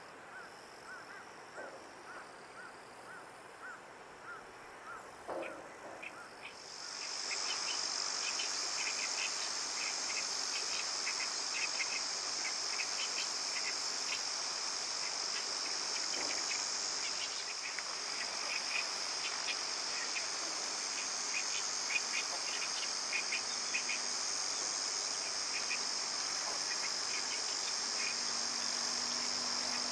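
A steady high-pitched insect chorus that starts suddenly about seven seconds in and keeps going. Before it, a run of short repeated chirps; scattered short ticking calls sound throughout.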